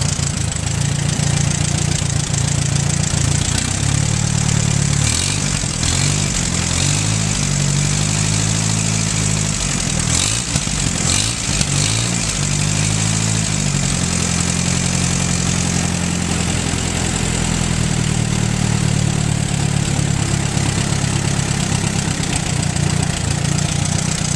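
Allis-Chalmers IB tractor's four-cylinder engine running, its speed dipping and rising several times through the middle, then holding steady. With the manifold replaced, it runs without the earlier sputter.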